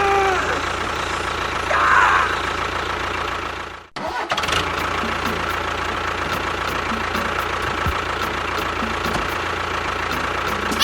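A small machine's motor running steadily with a low hum and a faint whine. The sound drops out for an instant about four seconds in, then carries on unchanged.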